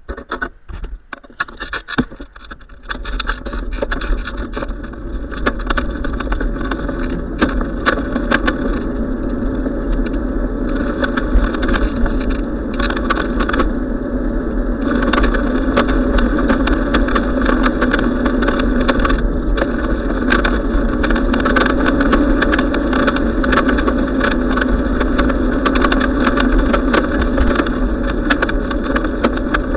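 Bicycle riding noise on a camera mounted to the rider or bike: steady wind rumble on the microphone and tyres rolling on asphalt, with frequent small clicks and rattles. It is quieter and broken up for the first couple of seconds, then turns steady from about three seconds in as the bike gets up to speed.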